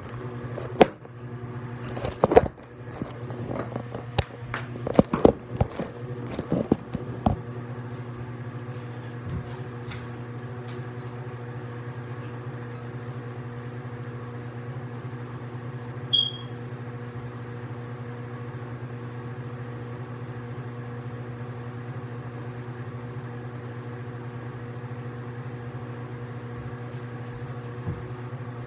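Several knocks and clicks of a phone being handled and set down in the first seconds, then a steady low mechanical hum, typical of a bathroom ceiling exhaust fan running. A brief high chirp about 16 seconds in.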